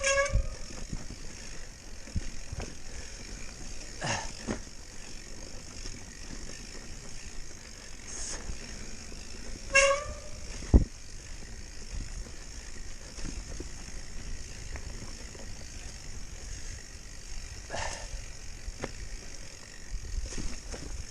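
Mountain bike disc brakes squealing briefly twice, once at the start and again about ten seconds in. Under them the bike clatters and knocks over rough ground, with a sharp knock just after the second squeal.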